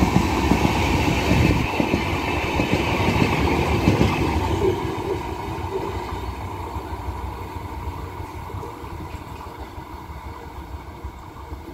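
Empty rake of LHB passenger coaches rolling past on the rails, a steady rumble of wheels and running gear. It fades away smoothly from about four seconds in as the train recedes down the line.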